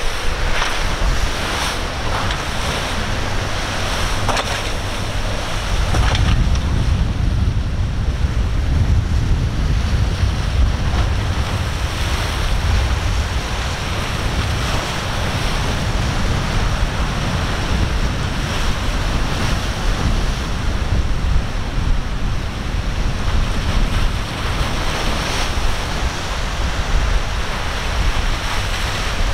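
Wind buffeting the microphone over breaking waves and surf, the low rumble of the wind growing heavier about six seconds in.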